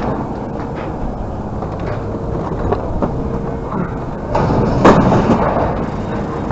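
Loud, steady scrapyard machinery din with an on-and-off hum, and a loud crash of scrap metal about four and a half seconds in.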